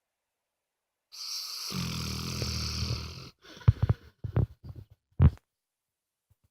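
A dog snoring: one long buzzing snore of about two seconds, then a run of short, abrupt puffs of breath.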